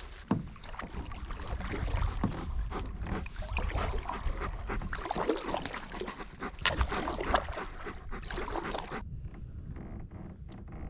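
A German shepherd dog and a kayak on the water: irregular knocks, splashes and dog sounds that go on busily and then drop away about nine seconds in, leaving only a few faint clicks.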